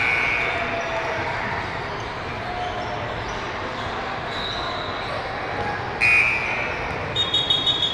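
Basketball gym ambience in a large, echoing multi-court hall: voices and basketballs bouncing on hardwood. A sudden loud high tone sounds about six seconds in, and short high chirps follow near the end.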